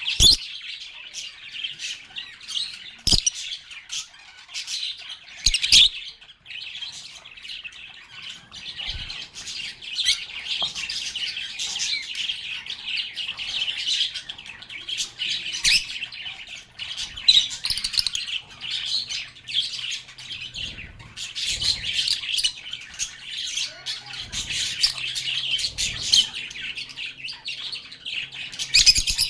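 A flock of lovebirds chirping and squawking continuously in dense overlapping chatter, with a few sharp clicks or taps, one near the start, two more within the first six seconds and one near the end.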